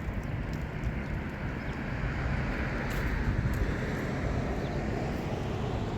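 Steady low vehicle rumble with a hiss that swells about halfway through and then eases.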